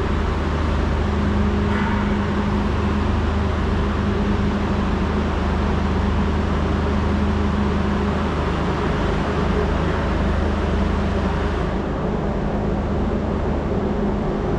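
Steady engine hum with road traffic noise; the hiss of traffic drops away about twelve seconds in.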